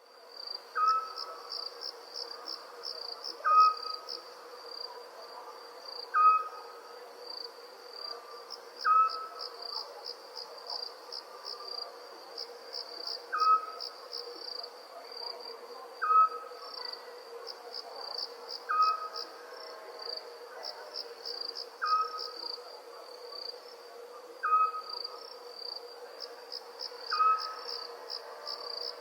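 Crickets chirring in a steady, fast-pulsing chorus. Over it an owl gives a short single-note call about every two and a half to three seconds, about ten times in all, each call the loudest sound.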